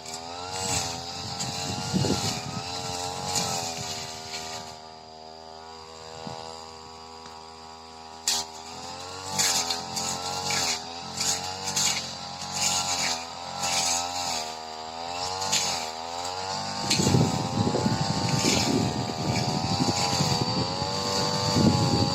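Supra SPR328 brush cutter engine revving up and down, easing to a steadier idle for a few seconds and then revving again. From about seventeen seconds in, a dense rattling noise joins it as the blade cuts through tall, thick grass.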